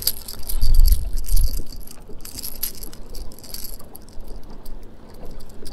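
A white bass thrashing on the line as it is held up out of the water, its lipless crankbait's rattle and treble hooks clattering in quick clicks. A few dull thumps come about a second in.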